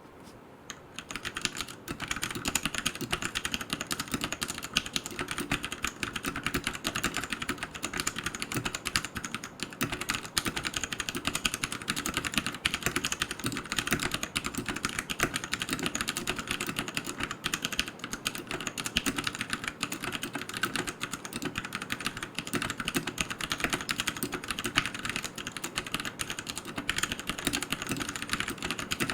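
Fast, continuous typing on a Royal Kludge RK100 mechanical keyboard with tactile brown switches: a dense run of irregular key clacks that starts about a second in.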